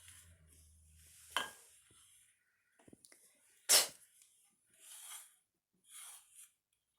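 A single spoken phonetic letter sound 't', a short, sharp puff of breath about halfway through, with faint hiss-like breaths around it.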